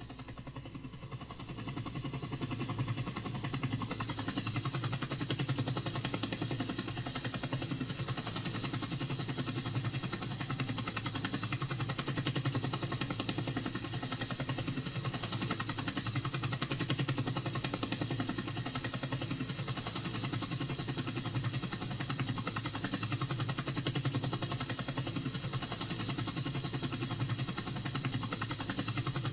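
Camera drone's motors and propellers humming steadily in flight, rising a little over the first two seconds.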